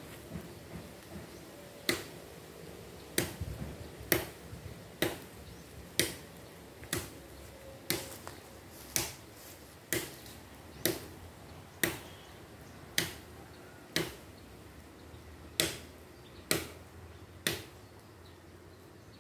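A steady series of sharp chopping strikes, about one a second, each ringing briefly; they begin about two seconds in and stop near the end.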